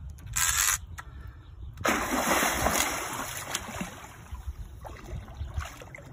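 Large hooked fish thrashing at the water's surface by the bank. A short splash comes about half a second in, then a longer, louder burst of splashing at about two seconds that dies away over the next two seconds.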